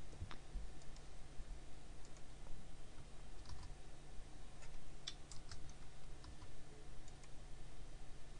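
Scattered, irregular clicks of a computer keyboard and mouse, a dozen or so, over a low steady hum.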